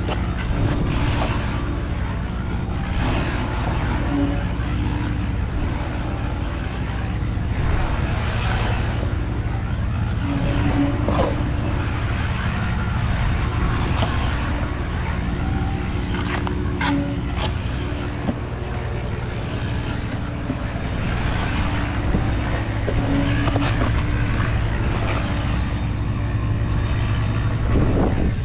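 An engine running steadily with a low hum, with scattered light knocks and clicks over it.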